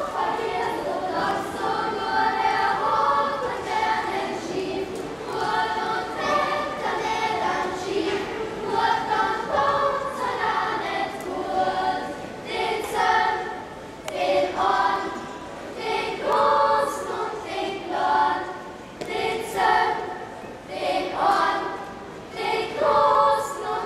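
A choir of children and adults singing together, in phrase after phrase.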